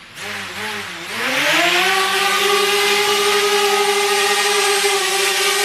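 DJI Spark drone's propeller motors spinning up for take-off: a wavering buzz, then a rise in pitch about a second in, settling into a loud, steady whine as it hovers.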